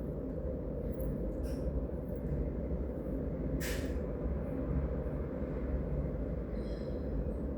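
Steady low rumble of street traffic. A short hiss comes about three and a half seconds in, and a brief faint high squeak near the end.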